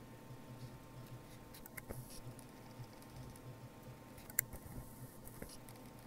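Faint handling noise over a low steady hum: a few light clicks about two seconds in, and one sharper click a little past the middle.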